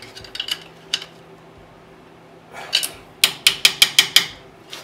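Hand socket ratchet clicking in a quick even run of about seven clicks, about three seconds in, with a few light metal tool clinks before it.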